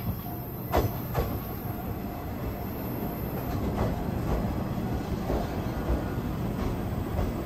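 Two-car local train pulling into the platform at low speed, a steady low rumble of wheels on rail. Two sharp clacks come close together about a second in, and fainter clacks follow as the wheels cross the rail joints.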